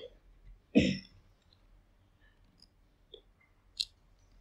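Plastic Lego pieces clicking and knocking as they are handled on the table: two louder sharp clicks near the start, then two fainter ones about three and nearly four seconds in.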